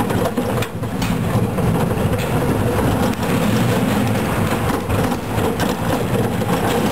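Steel roller coaster train running along its track at speed: a steady, loud rumble of wheels on the steel rails with occasional clacks.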